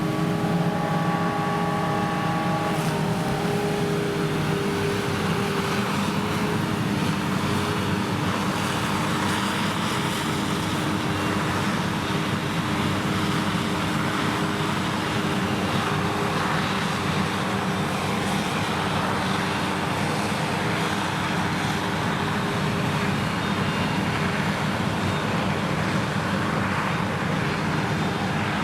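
Krone Big X 1100 forage harvester running under full load while chopping triticale: a steady, loud engine and machine hum over the rush of crop through the chopper. Its tones shift pitch in the first few seconds, then hold steady.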